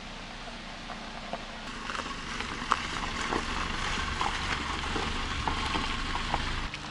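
Car driving on a rough, wet mountain road: a low engine rumble under a crackling hiss of tyres and water, with many scattered ticks and taps that grow louder about two seconds in.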